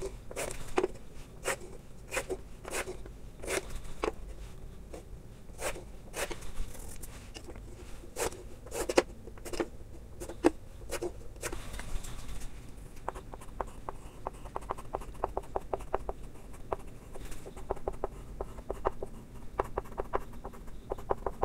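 Chalk on a blackboard: scattered scratching strokes as guide lines are ruled along a straightedge, then from about halfway through a quick run of short taps and scrapes as lettering is chalked.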